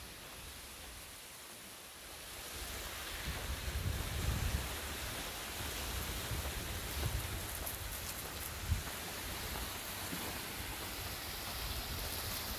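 Wind noise: a steady hiss with low rumbling buffets on the microphone, heaviest from about two to five seconds in.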